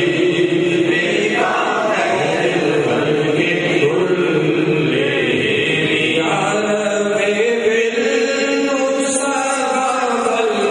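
Men's voices chanting a devotional recitation into handheld microphones, with long held, gliding notes.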